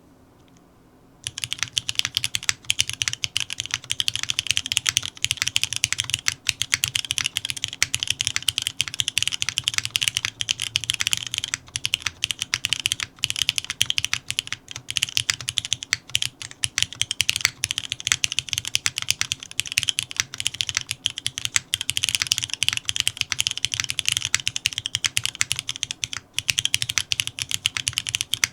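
Continuous fast typing on an o-ring-mounted custom 60% mechanical keyboard with an aluminium plate, lubed and filmed Cherry MX2A Orange switches and GMK keycaps. Dense key clicks with a low thock start about a second in, broken by brief pauses.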